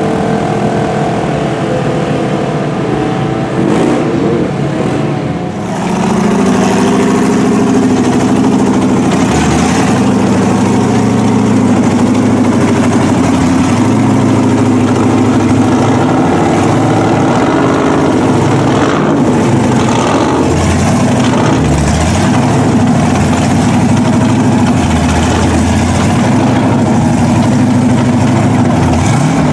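Polaris side-by-side engines revving as they wade through deep water, then after about six seconds a lifted mud truck on tractor tires running steadily as it idles and creeps into a pond.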